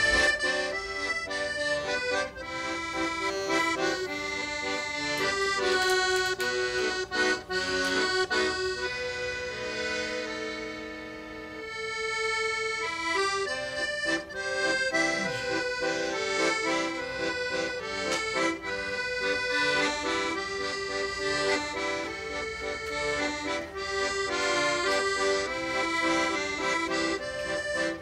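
Background music: a comical solo accordion tune in a Parisian style, fast and busy, easing into a few softer held notes about ten seconds in before picking up again.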